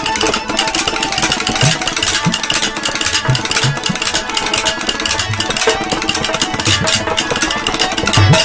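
Din of a packed procession crowd with irregular deep drumbeats and a steady held musical tone over a dense crackling noise.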